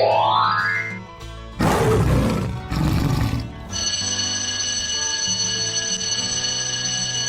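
Two loud roars from a large animal, the first about one and a half seconds in and the second just after it, each lasting under a second, over background music. A rising sound effect comes before them and a steady ringing tone after them.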